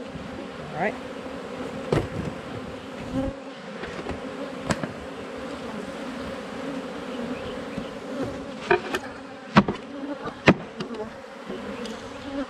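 Honeybees buzzing in a steady hum around an opened hive, with several short sharp knocks on top, the two loudest a second apart late on.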